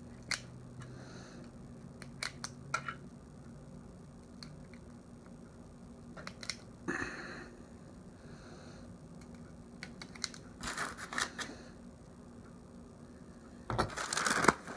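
Cartridges being thumbed one at a time into a pistol magazine: irregular sharp clicks with light rustling handling, and a louder clatter of clicks near the end.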